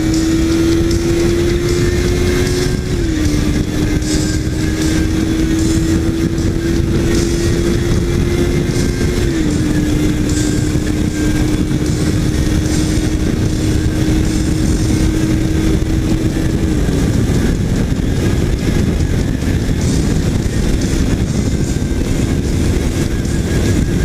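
Kawasaki Ninja 300 parallel-twin engine riding under way, its tone climbing slowly and dropping twice, at about 3 and 9 seconds in, as it shifts up. Heavy wind rush covers it, and after about 17 seconds the engine tone fades into the wind.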